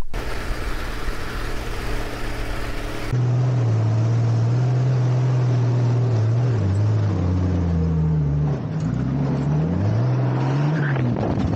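Wind noise on the microphone for about three seconds, then an open dune buggy's engine running, its pitch dipping and climbing several times as it revs.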